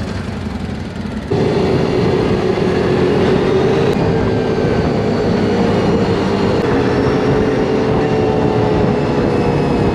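Quad (ATV) engine running steadily at road speed, a continuous drone with noise over it. It gets noticeably louder about a second in and then holds level.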